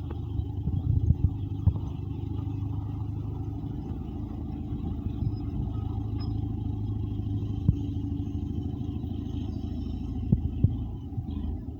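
Caterpillar D8 bulldozer's diesel engine running steadily under work, with a few sharp metallic clanks: several in the first two seconds, one near the middle and two close together near the end.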